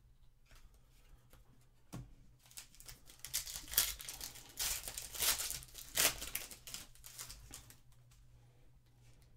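Foil wrapper of a Panini Legacy football card pack being torn open and crinkled by hand, a few seconds of crackly rustling that starts after a single soft knock about two seconds in.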